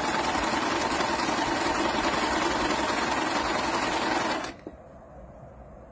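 Jaguar mini compact sewing machine running steadily at speed while sewing a decorative design stitch, then stopping abruptly about four and a half seconds in.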